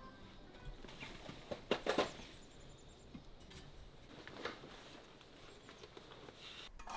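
Faint rustling of backpack fabric and straps with light knocks as a backpack is handled and lifted off wall hooks; a few sharper taps come about two seconds in and again about halfway through.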